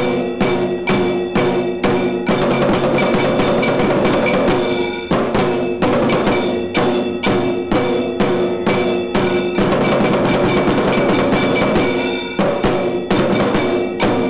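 Tiru Kailaya Vadya, a Tamil temple percussion ensemble, playing drums and ringing metal percussion in a fast, even beat of about two to three strokes a second. Twice the beat thickens into a dense continuous roll.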